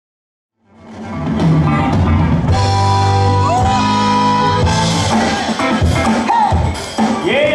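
Music played by the battle DJ fades in from silence within the first second, then plays loud with a heavy bass line and sustained, sliding pitched lines.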